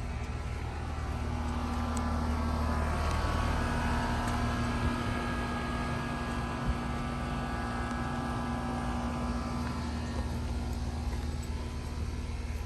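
An engine running steadily with a low hum, its sound swelling over the first few seconds and then easing off.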